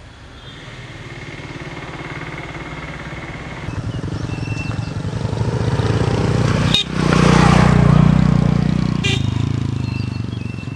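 A motor vehicle engine drawing closer, growing steadily louder, loudest about seven to nine seconds in, then fading as it passes.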